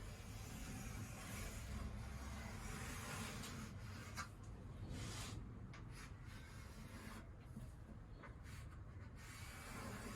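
Pencil drawing on a timber benchtop, tracing an outline: faint scratchy rubbing, with short separate strokes and pauses in the second half.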